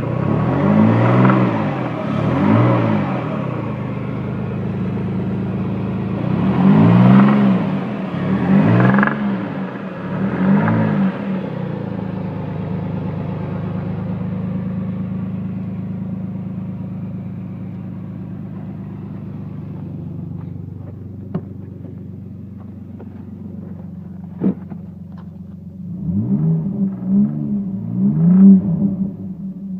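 A car engine idling and blipped in quick revs: twice at the start, three times in the middle and three times near the end. A few sharp clicks are heard around the quieter idle stretch. The engine has a knock (стук) that the owner is trying to show.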